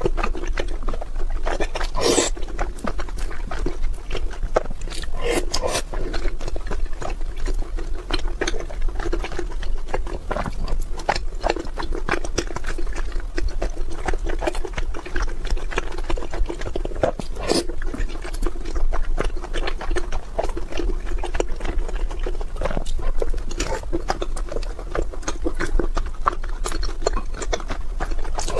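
Close-miked chewing and wet, sticky mouth sounds of a person eating soft, syrup-soaked food, a steady run of small smacks and clicks, over a steady low hum.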